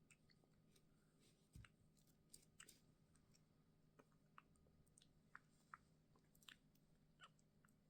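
Faint ASMR trigger sounds: scattered soft clicks and small crackles, about one or two a second, over a low steady hum.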